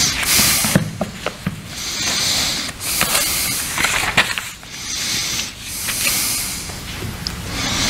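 Paper rustling close to the pulpit microphone: sheets of notes being handled in short hissy rustles, several in a row, with a few light clicks.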